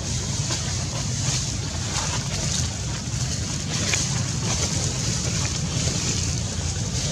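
Wind buffeting the microphone: a steady low rumble with a hiss above it and a few faint ticks.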